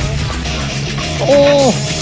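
Background rock music with a steady beat, and a short voice-like call about a second and a half in.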